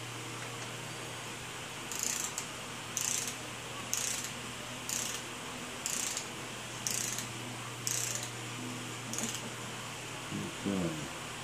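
Hand ratchet clicking in about eight short strokes, roughly one a second, as a connecting-rod cap bolt is run down snug, over a steady low hum. A brief rising sound comes near the end.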